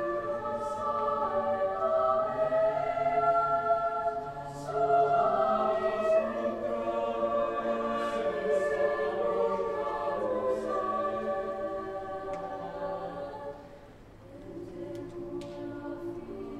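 Mixed-voice chamber choir singing a cappella: sustained, overlapping chords that swell and shift, with soft 's' sounds from the words. About three-quarters of the way through the chord fades almost away, and the choir comes back in more softly on lower notes.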